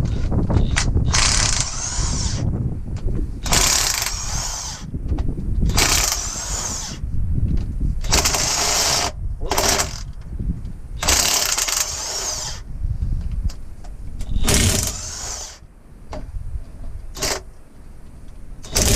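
A power wrench spinning fasteners on a 454 big-block Chevy engine, running in short bursts of about a second each, roughly seven times. Each burst carries a wavering high whine, over a continuous low rumble.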